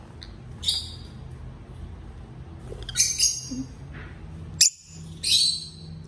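Rosy-faced lovebird giving short, high-pitched chirps, a few at a time with pauses between, over a low room hum.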